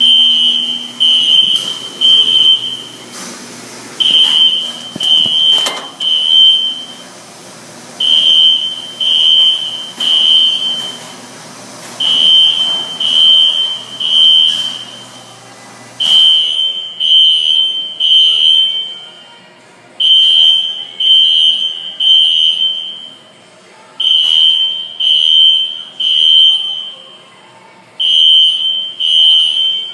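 System Sensor SpectrAlert Classic P24 fire alarm horns sounding the temporal-3 evacuation pattern: three loud, high-pitched beeps about a second apart, then a pause, repeating every four seconds.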